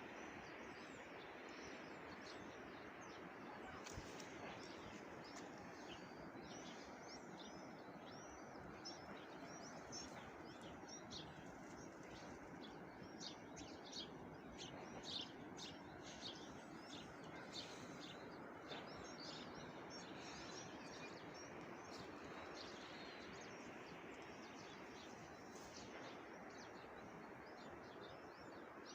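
Small birds chirping, many quick high calls that come thickest through the middle stretch. Under them runs a faint, steady outdoor hiss.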